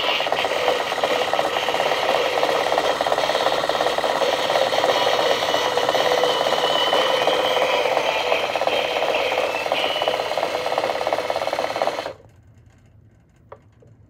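Battery-powered toy car's small electric motor and plastic gears whirring with a steady rattle as the lifted wheels spin, driven by the car's sound feature. It cuts off abruptly about twelve seconds in.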